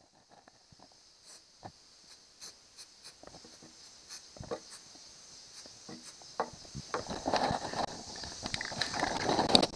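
Aerosol spray can of Rust-Oleum bonding primer hissing as it sprays, with scattered clicks and knocks of handling. The spray gets louder and rougher over the last few seconds, then cuts off suddenly just before the end.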